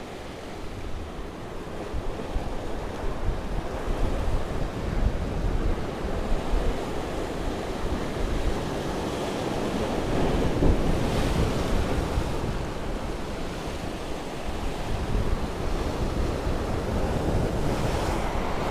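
Sea waves surging and breaking against shoreline rocks, with wind buffeting the microphone. The surf swells louder about halfway through.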